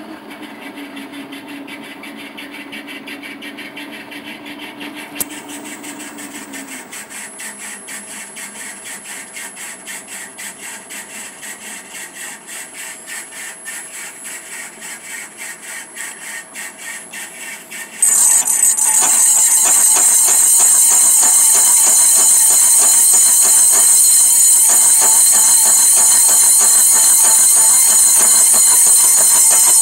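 Milling machine spindle turning a slitting saw, a steady hum with a regular pulse, running a little fast for a slitting saw. About two-thirds in the saw bites into the metal stock and a much louder high-pitched screech with ringing tones takes over and holds steady.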